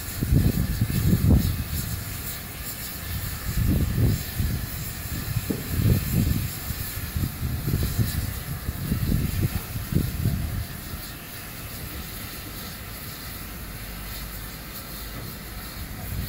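Steam hissing steadily from a GWR Manor-class 4-6-0 steam locomotive as it stands in steam on a turntable being turned. Uneven low rumbling swells come and go through the first ten seconds, then ease off.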